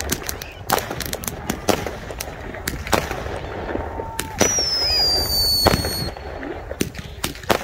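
New Year's fireworks going off: a rapid run of sharp cracks and bangs throughout, with a high whistle falling slowly in pitch for about a second and a half, starting about four and a half seconds in.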